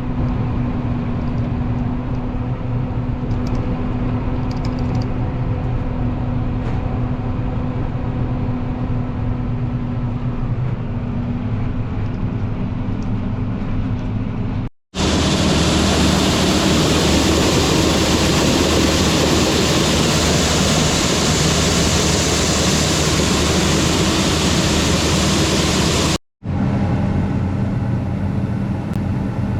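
Heavy farm machinery's diesel engine running steadily. The sound drops out twice; the section between is louder and more rushing before the steadier hum returns.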